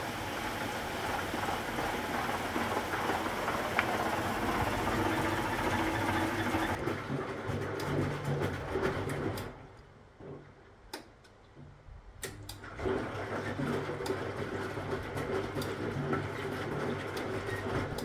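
Huwa Deluxe 65 washing machine in its wash cycle. Water rushes in for the first several seconds and cuts off. Then the wash motor turns the drum with laundry sloshing and knocking, pauses for about three seconds midway and starts again for the drum's left-right reversing, and stops near the end.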